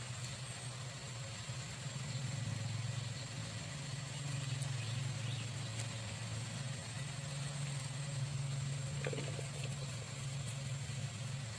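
A steady low engine-like hum over a background hiss, with a few faint ticks.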